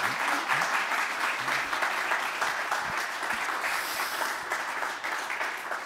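Audience applauding, the clapping thinning out near the end.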